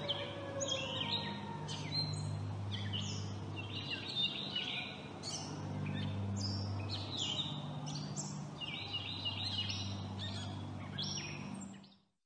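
Wild songbirds chirping and singing busily, with many short chirps and trills, over a low steady hum. The sound fades out near the end.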